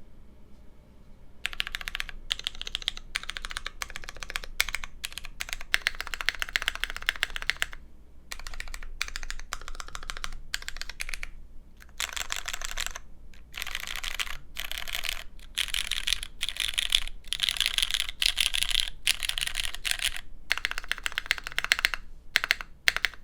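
Fast typing on a custom 60% mechanical keyboard (hid.n Midway60) with lubed Cherry MX Brown switches on a carbon fiber plate and GMK keycaps. It begins about a second and a half in and comes in quick runs of keystrokes broken by short pauses. The plate adds a slight resonance that the owner finds tasteful.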